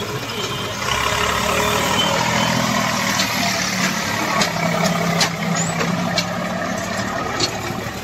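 Tractor diesel engine running, getting louder about a second in, with a few sharp clicks and rattles over it.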